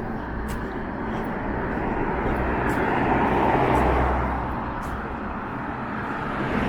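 A motor vehicle passing by on the street, its tyre and engine noise swelling to a peak about three and a half seconds in and then fading away.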